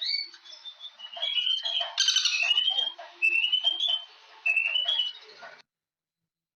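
Bird calling in repeated short phrases of chirping notes that step upward in pitch, with a brief patch of clicks about two seconds in. The sound cuts out to dead silence about a second before the end.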